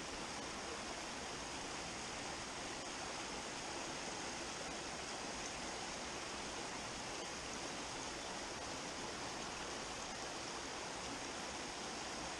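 Small rocky stream running, water splashing steadily down little cascades between boulders.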